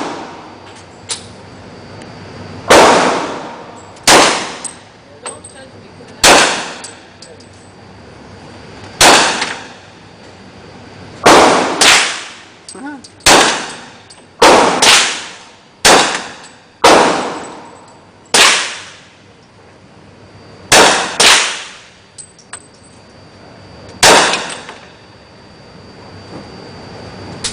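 Gunshots at a shooting range: about fifteen single shots at irregular intervals, some in quick pairs, each followed by a ringing echo that dies away over about a second.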